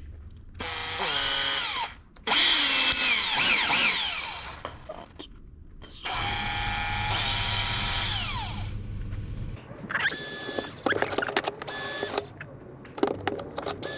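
Power drill run in several short bursts, its motor whine rising as it spins up and falling as it winds down between bursts, as it drills out and enlarges the chainsaw's fuel-line holes with a larger bit.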